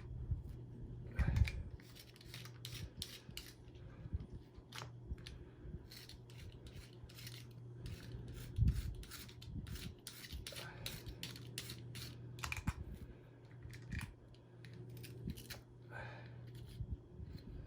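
Scissors snipping and scraping through hair wound tight around a vacuum cleaner's beater bar brush roll: many short, irregular snips and rubs, with a steady low hum underneath.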